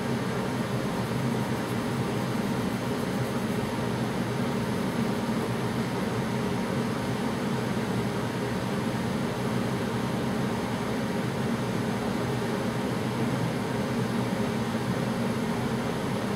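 Room heater running with a steady, even noise, kind of loud.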